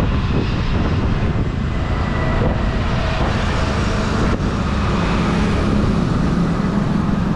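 Motorcycle riding along a road, heard from a helmet-mounted camera: a steady rush of wind and road noise over the bike's engine running, with passing two-wheeler traffic.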